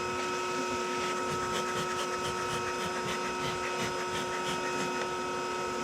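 Bee vacuum motor running with a steady hum while it sucks up honeybees. Through the middle there is a faint rapid ticking.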